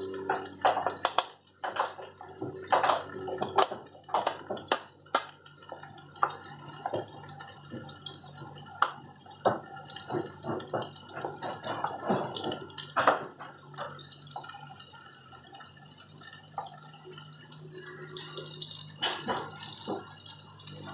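Wooden spatula scraping and knocking against a metal frying pan as sautéed mushrooms are scooped out, in quick irregular strokes that thin out after about twelve seconds, over a low steady hum.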